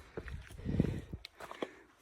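Hiking footsteps crunching on loose volcanic rock, in scattered short clicks. A louder low rush comes about half a second in and lasts about half a second.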